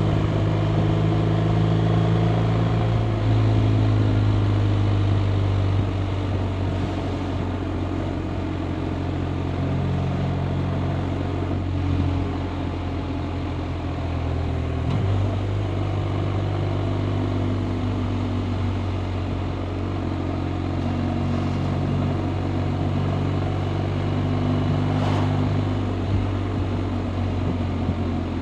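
BMW R 1250 RT's 1254 cc boxer twin running under way, a steady engine note whose pitch steps down and back up several times.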